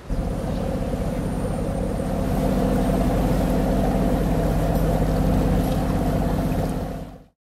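A boat engine running steadily at a constant speed. It fades out near the end.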